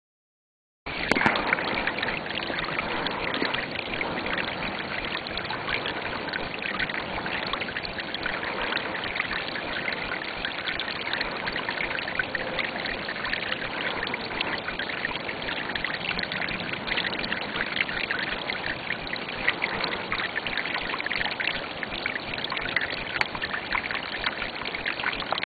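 Steady rushing noise from the outdoor video clip's microphone, beginning abruptly about a second in and holding evenly with a fine crackly texture.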